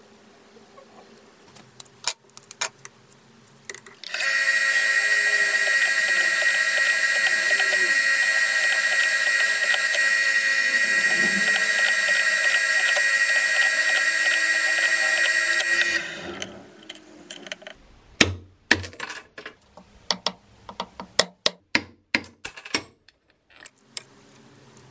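A power tool starts about four seconds in, runs steadily at a high pitch for about twelve seconds, then stops. Light clicks and knocks of tools and parts being handled come before and after it.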